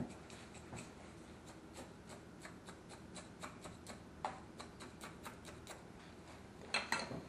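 A wooden stick poking and working gritty granular bonsai soil (an Akadama and Fujiyama mix) in a bonsai pot, settling it around the roots: faint, irregular small ticks and scratches, with a couple of louder clicks near the end.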